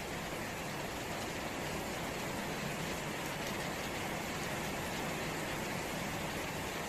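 Steady rain falling on wet ground and puddles, an even hiss of drops splashing.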